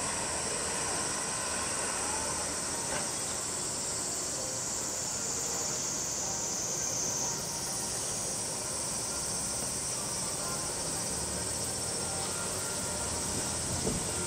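A chorus of summer cicadas buzzing in one continuous high drone, its pitch jumping abruptly higher about halfway through.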